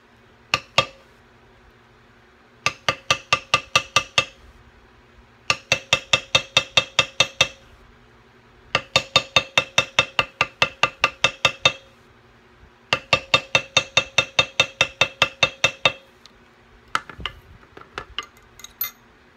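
A poly mallet rapidly striking a metal leather beveler, bevelling the swivel-cut outlines in cased leather: four runs of quick, even blows at about six or seven a second, each run lasting one and a half to three seconds, with short pauses between. There are two single strikes near the start and a few lighter taps near the end.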